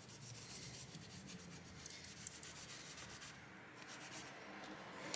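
Toilet paper damp with isopropyl alcohol rubbing and wiping old, dried thermal paste off a laptop's processor chips: a faint, continuous scratchy rubbing.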